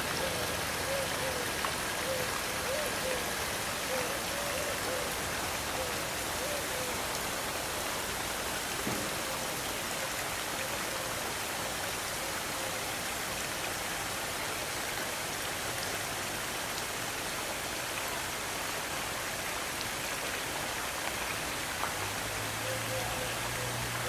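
A steady, even hiss with no clear events, with a faint wavering tone in the first few seconds and again near the end.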